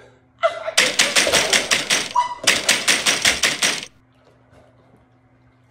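Rapid knocking on a door: two quick runs of raps, about five or six a second, with a short break between them.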